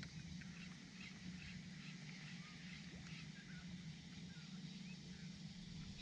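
Faint, scattered bird chirps and short calls over a low, steady background rumble.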